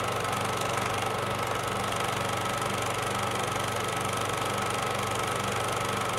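Sound effect of a film projector running: a steady mechanical whir with a fast, even clatter and a low hum.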